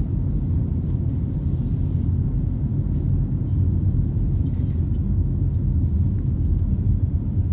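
Steady low rumble of a car driving along, with road and engine noise and no marked changes.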